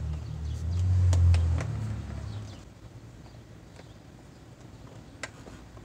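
A passing motor vehicle's engine rumbles low, swells about a second in, then fades away after about two and a half seconds. A few light clicks and taps of a plastic motorcycle fairing being handled and fitted come through it, one sharper click near the end.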